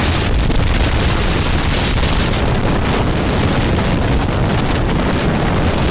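Storm wind of about 70 knots blasting straight onto a cell phone's microphone: a loud, continuous rush with heavy low buffeting that never lets up.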